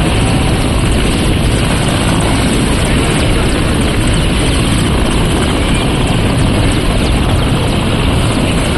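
Mil Mi-17 military transport helicopter running on the ground with its main rotor turning: a loud, steady rush of turbine and rotor noise.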